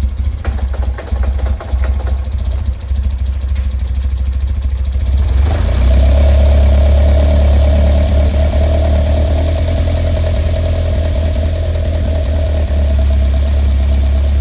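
Ford Zetec Blacktop 2.0-litre four-cylinder engine in a Westfield kit car running with a misfire, unsteady and knocking for the first few seconds. About five and a half seconds in it gets louder and a steady higher note comes in and holds.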